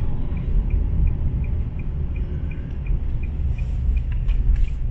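Steady low road and engine rumble inside a moving car's cabin, with the turn-signal indicator ticking evenly about three times a second.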